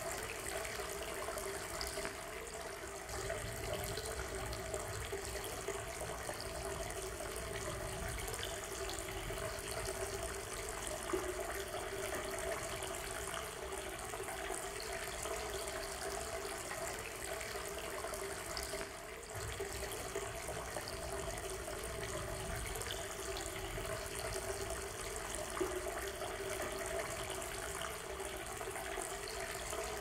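Shallow river babbling over a stony bed: a steady, unbroken rush of running water.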